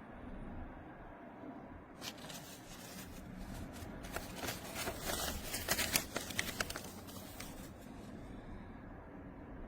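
Rustling and clicking handling noises, thickest through the middle, over a low steady hum.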